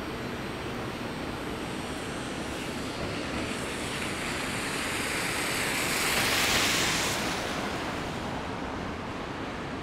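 A vehicle passing on a snowy street: its tyre hiss swells to a peak a little past the middle and fades, over a steady hum of city traffic.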